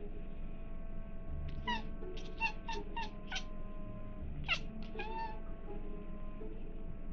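A cat giving a quick run of about six short meows, each falling in pitch, then a few more a second or so later, over soft background music.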